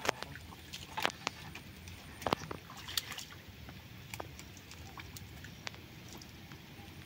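Scattered wet slaps and splatters of mud and water, a few sharper than the rest, as mud is scooped away by hand from around a tractor wheel bogged to its axle.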